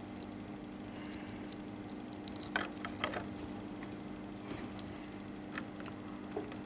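Faint small clicks and taps of plastic from a figma action figure being handled and posed, with two slightly louder clicks about two and a half and three seconds in, over a steady low hum.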